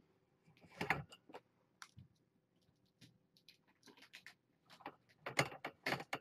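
Irregular clicks, taps and scuffs from a kitten playing right against the camera, with one louder cluster about a second in and a denser run of louder ones near the end.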